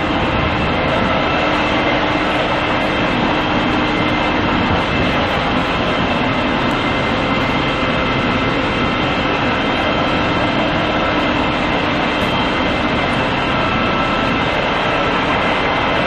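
Steady, loud engine and machinery drone with several constant whining tones over it, with no change or break.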